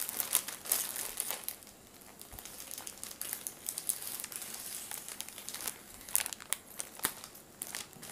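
Plastic courier bag crinkling and crackling in short bursts as it is handled and cut open with scissors.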